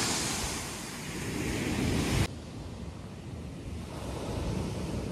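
Sea surf washing on a shingle beach, with wind rumbling on the microphone. About two seconds in the sound drops abruptly to a quieter, lower rumble of wind and waves.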